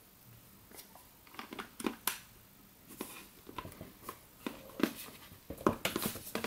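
Irregular plastic clicks and taps from a Vonino Druid L10 tablet's flexible rubberised plastic slot cover being handled and pressed into place over the SIM and microSD slots. The clicks come closer together near the end.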